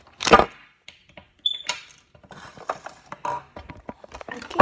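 Handling noise as the camera is picked up and moved: a loud knock and rustle a quarter second in, a brief high squeak about a second and a half in, then a run of small clicks and rustles from plastic toy pieces.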